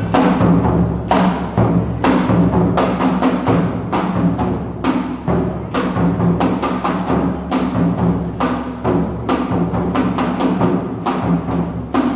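Awa odori festival music: a large barrel-bodied taiko drum beaten in a fast, driving rhythm, with a hand-held kane gong clanging along on the beat.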